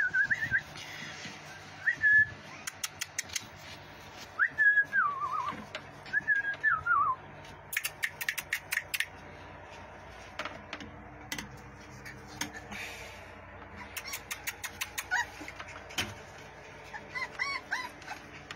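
Pit bull puppies whining: several short high-pitched whines in the first seven seconds, one sliding downward, and fainter ones near the end. Quick runs of sharp clicks come in between.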